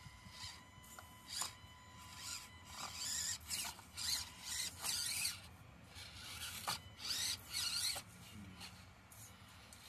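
Axial SCX24 1:24-scale RC rock crawler's electric motor and gears whirring in short, high-pitched bursts as the throttle is blipped to creep it over rocks. The bursts come closest together in the middle and again near the end, with a faint steady whine between them.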